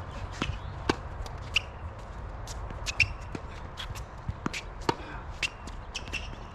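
Tennis players' shoes scuffing and squeaking on the court, with footsteps and the sharp taps of a tennis ball bouncing, scattered irregularly.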